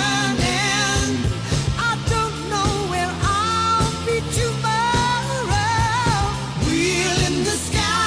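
Background music: a pop song with a sung melody over a steady beat.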